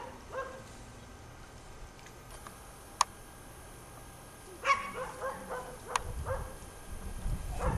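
Collie puppy yipping: one short high yelp just after the start, then a quick run of short yips and barks from about halfway in, several a second. A single sharp click comes near the middle, and a low rumble builds under the last yips.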